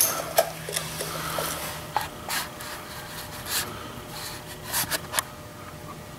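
Handling noises: scattered light clicks and rubbing over a faint low hum.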